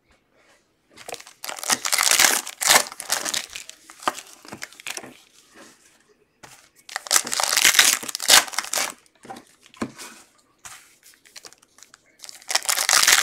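Foil wrapper of a football trading-card pack being torn open and crinkled by hand, in three spells of rustling.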